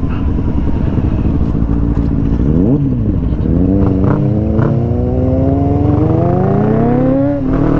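Sport-bike engine on the highway, pulling hard in one gear with its pitch climbing steadily for several seconds, then dropping sharply near the end as it shifts up. Wind rumble runs underneath. There is a brief dip and recovery in pitch about a third of the way in.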